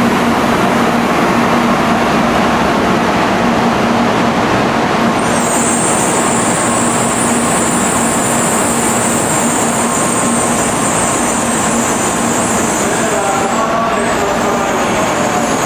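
16-car N700A Shinkansen passing through the station at speed: a steady, loud rushing roar of the train, with a high hiss joining about five seconds in.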